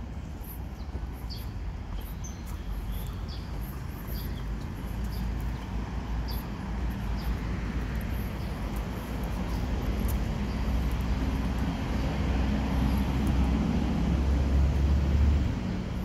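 Low rumble of a motor vehicle, growing louder through the second half and dropping off near the end, with faint short chirps of small birds.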